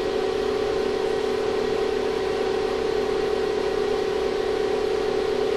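Steady hum of a 2500-watt ZVS induction heater rig and its power-supply cooling fan running under load while heating a piece of sheet steel. It holds one strong mid-pitched tone with a fainter higher one above it, and does not change.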